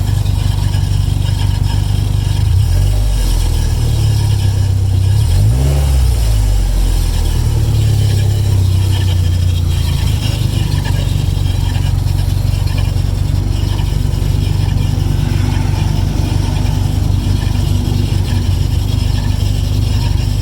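An engine running steadily, with a brief rise and fall in pitch about five to six seconds in.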